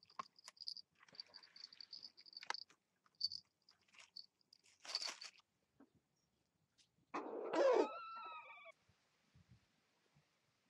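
Quick high-pitched peeps with a few sharp rattles from a wire-mesh fence being pawed by a puppy. Then, about seven seconds in, a loud, harsh chicken call lasting about a second and a half, its pitch falling away at the end.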